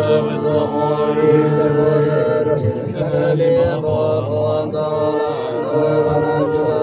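Buddhist mantra chanted in a melodic line over a steady held drone.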